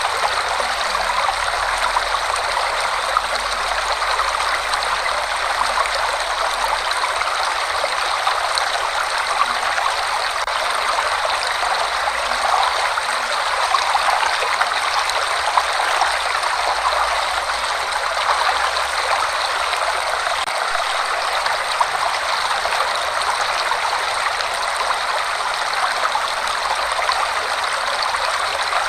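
Waterfall flowing heavily: a steady, unbroken rush of falling water, bright and splashy with little deep rumble.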